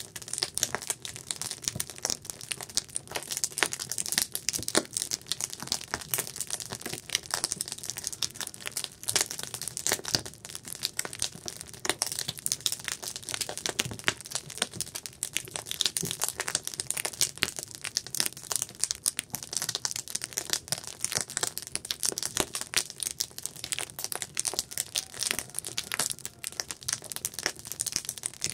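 Campfire of burning wood crackling and popping, a dense run of irregular sharp snaps throughout.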